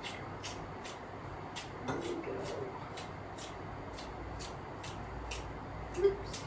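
Kitchen scissors snipping through spring onions, a short crisp snip repeated steadily about two or three times a second.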